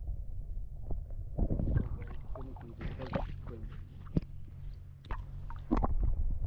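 Camera microphone submerged in a river: a steady low underwater rumble with scattered clicks and knocks. From about a second and a half in there is sloshing and handling noise as the camera is moved by hand at the waterline, and a couple of louder thumps come near the end.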